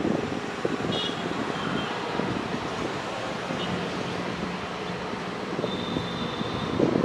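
A passenger train's coaches rumbling steadily on the track as it rolls away, with wind buffeting the microphone.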